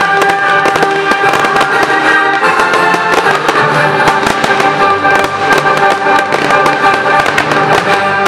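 Fireworks bursting in rapid succession, many sharp bangs and crackles, over loud film-score music playing throughout.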